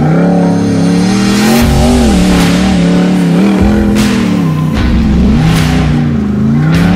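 Lifted Jeep Wrangler's engine revving up and down as it crawls over rock, the pitch rising and falling in smooth swells, with a few sharp knocks.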